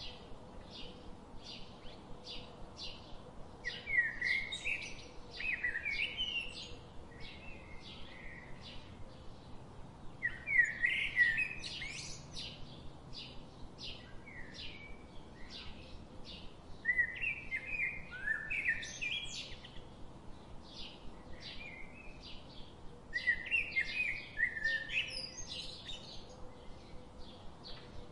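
Birds calling: a short high chirp repeated about twice a second, with louder bursts of varied, warbling song every six seconds or so.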